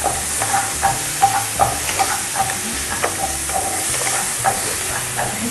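Diced vegetables sizzling in a frying pan, stirred and scraped with a wooden spatula: a steady frying hiss with an irregular run of short scrapes, a few a second.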